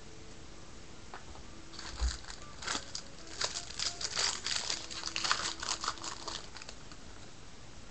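Foil wrapper of a 2012 Bowman Jumbo baseball card pack being torn open and crinkled by hand: a dense run of crackles starting about two seconds in and stopping shortly before the end.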